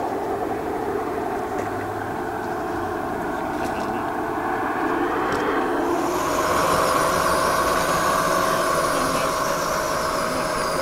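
Gauge 1 model trains running on outdoor track: a steady mechanical whine. About six seconds in it shifts to a steadier whine with higher tones added.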